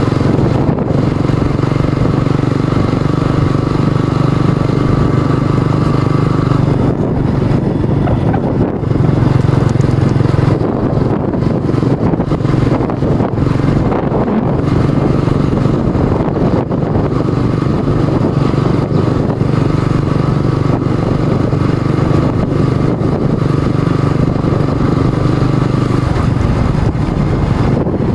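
Motorcycle engine running steadily under way, heard from the rider's seat. The engine note changes about seven seconds in.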